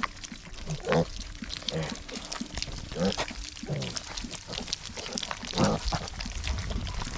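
A group of young piglets at a feed pan giving short squeals and grunts, one every second or so, amid a continual clicking of eating and jostling. They are hungry piglets crowding in to eat a wet pellet mash.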